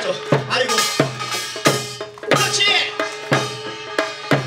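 Korean pungmul folk percussion band playing a driving beat on buk barrel drums, with strong strokes about every two-thirds of a second and a wavering high melody line above them.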